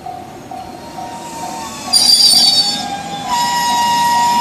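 Tobu 200 series limited express electric train pulling into a station, with a loud high-pitched wheel and brake squeal about two seconds in and a steady squealing tone in the last second as it slows. A warning bell dings about twice a second throughout.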